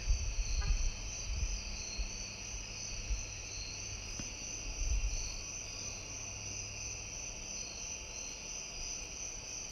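Rubber spatula scraping thick condensed cream of celery soup out of a can, with soft thuds as dollops drop onto the pie filling, over a steady high-pitched hum.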